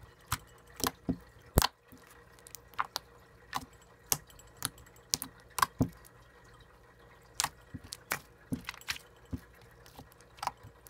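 Black glitter slime being squeezed and poked by fingers, giving irregular sharp wet clicks and pops, about two a second.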